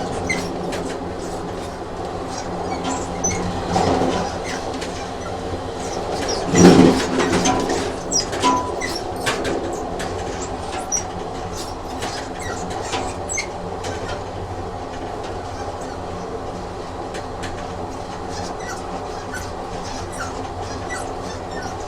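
Train running on rails: a steady rumble and hum with scattered sharp clicks from the wheels and track, and a louder clatter about seven seconds in.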